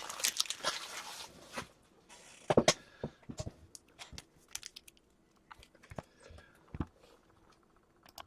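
Foil trading-card pack wrapper crinkling for about the first second and a half, then scattered light clicks and taps of hockey cards being handled and set down.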